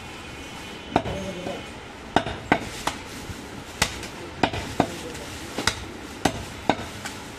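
Butcher chopping goat mutton with a blade: about a dozen sharp, irregularly spaced chopping strikes.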